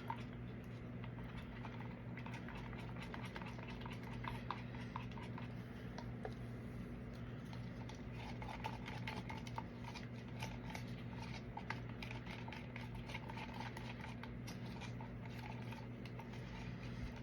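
Faint, scattered light taps and clicks from handling resin cups and a silicone mould, over a steady low hum.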